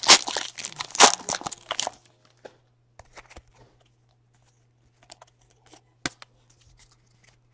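Plastic trading-card pack wrapper crinkling and tearing open for about the first two seconds. Then come faint slides and light ticks of cards being shuffled through the hands, with one sharper click about six seconds in.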